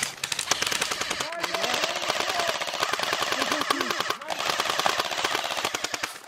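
Airsoft guns firing on full auto, a rapid run of mechanical clicks with short breaks about a second in and again near the four-second mark.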